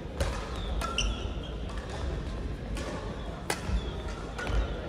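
Crossminton rackets hitting speeders in a sports hall: a handful of sharp, irregularly spaced strikes, with short squeaks of court shoes on the floor about a second in.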